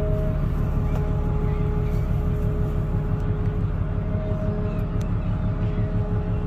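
Large container ship passing close by: a steady low engine rumble with a faint steady hum above it.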